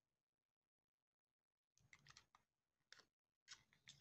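Faint clicks and scrapes of the plastic body of a Minolta 460TX 110 pocket camera being handled and worked apart by hand. It is nearly silent for the first couple of seconds, then comes a scattered handful of short clicks.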